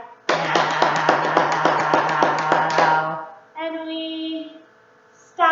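A woman singing a children's movement song, holding a long note over quick rhythmic claps at about seven a second, then a short second sung note.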